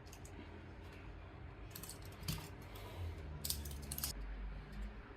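Faint, irregular small clicks and light scratches of a plastic car key fob and its parts being handled and picked at, about seven or eight scattered ticks.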